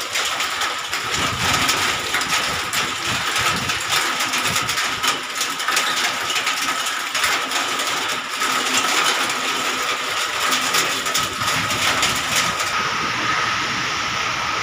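Rain falling steadily, a dense patter of drops over an even hiss, with a thin steady tone underneath.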